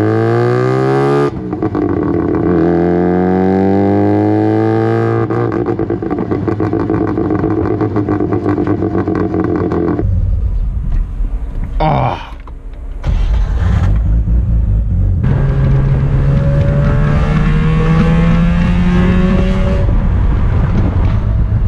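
Rotary engine in a rotary-swapped Toyota pickup accelerating hard, its exhaust pitch rising through the gears. There is a short break for a gear shift about a second in and another about twelve seconds in, then a long climb in revs near the end.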